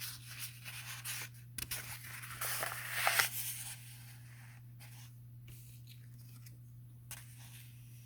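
Paper rustling as book pages are handled and turned, in irregular bursts, loudest about three seconds in, over a steady low hum.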